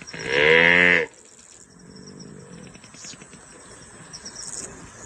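A single loud animal call, under a second long and rising in pitch at its start, moo-like, followed by faint high, rapid ticking.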